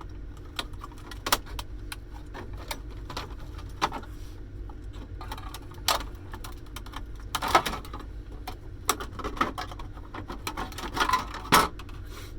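Irregular clicks, knocks and rattles of the plastic casing and circuit boards of a Casio TE-100 electronic cash register being taken apart by hand, with louder clatters at about seven and a half and eleven and a half seconds, over a low steady hum.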